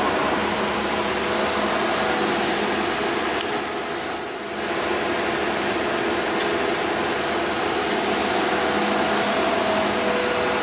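Bullard Cutmaster 42 vertical turret lathe running: a steady mechanical whir from its drive and spinning table, with a few steady tones through it. The sound dips briefly about four seconds in, then comes back to the same level.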